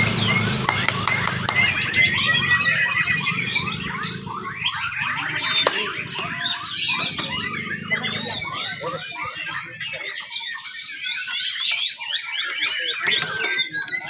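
Many white-rumped shamas singing at once from their contest cages: a dense tangle of fast, overlapping whistles, trills and chirps. A low hum fades out in the first couple of seconds.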